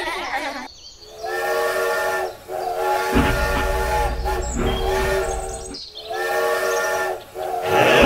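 Toy steam locomotive's electronic whistle sounding a series of blasts of about a second each, a steady chord of several tones. A low rumble from the running train joins about three seconds in.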